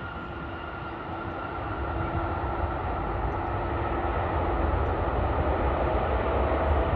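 Airbus A320neo with Pratt & Whitney geared turbofan engines on approach. The jet noise grows steadily louder as it nears, a steady whine over a deep rumble.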